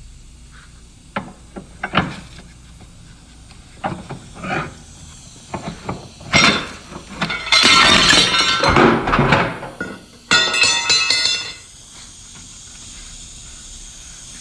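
Metal clanking and clinking in a collision repair shop around a frame-straightening setup. Scattered sharp knocks lead into a loud rattling, clattering stretch about halfway through, then a short ringing metallic screech a few seconds later.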